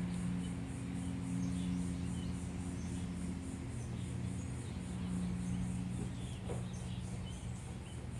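Insects trilling in a steady high pulse, about four pulses a second, with scattered short bird chirps, over a steady low hum.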